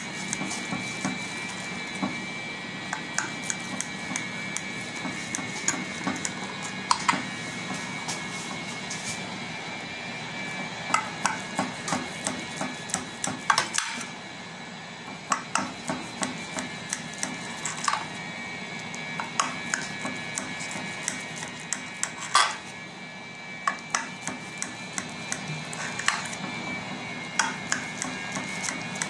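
A knife cutting through a baked semolina cake in a glass baking dish, the blade clicking and tapping against the glass many times at irregular intervals, over a steady high-pitched tone in the background.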